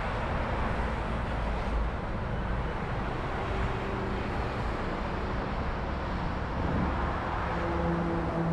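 Steady city street traffic noise: a continuous rush and low rumble of passing cars.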